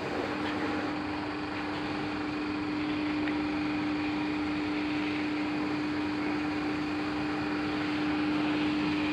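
A steady machine hum holding one even pitch over a rushing background noise, unchanging throughout.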